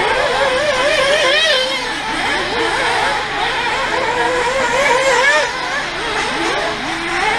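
Radio-controlled off-road model racing cars running around a dirt track, their motors rising and falling in pitch over and over as they speed up and slow for the corners.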